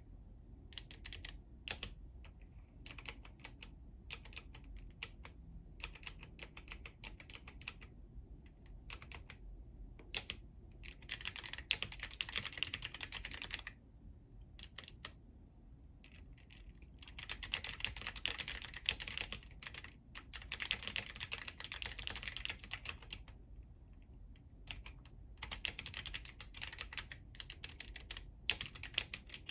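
Womier K68 mechanical keyboard with clicky Kailh Box White switches and crystal keycaps, typed on with long nails: quick runs of crisp, clicky keystrokes broken by short pauses and scattered single key presses.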